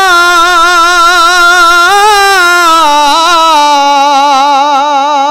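A man's voice singing one long drawn-out note with a wide vibrato into a microphone, with no accompaniment. The pitch lifts slightly about two seconds in, then drops a step lower around three seconds in.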